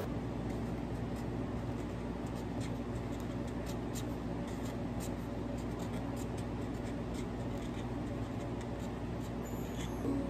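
Scattered light clicks and taps of small objects being handled, over a steady low hum.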